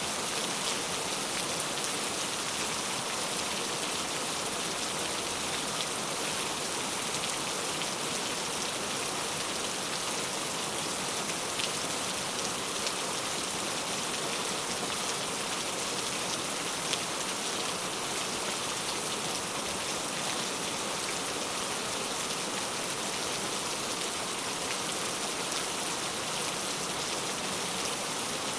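Steady rain falling, an even hiss with faint individual drop ticks here and there.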